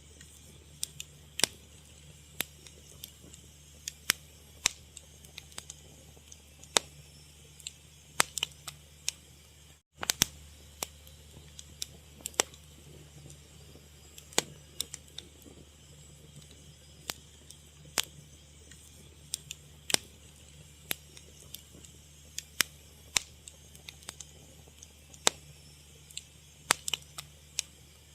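Wood fire crackling: irregular sharp pops and snaps, a few a second at times, over a low steady hum. The sound cuts out completely for a moment about ten seconds in.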